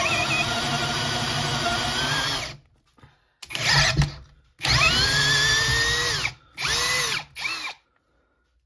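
Brushless cordless drill (Parkside Performance PABSP 20-Li C2) drilling with a 24 mm bit, running steadily until it stops about two and a half seconds in. Then come four short trigger pulls, the motor spinning up and winding down each time; the longest, around five seconds in, rises in pitch before falling away.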